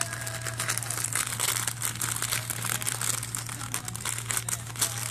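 Wrapping paper being crinkled and rustled by hand as a present is unwrapped, in a dense run of small crackles.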